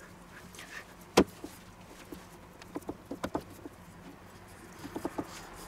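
A single sharp knock about a second in, then a few soft taps and rubs as hands press a ball of pizza dough flat on a floured wooden cutting board.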